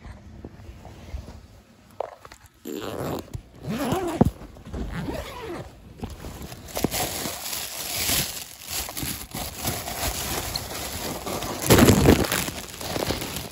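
Handling noise: a phone's microphone rubbing and brushing against clothing as the phone is moved and carried, with irregular scuffs and bumps, the loudest near the end.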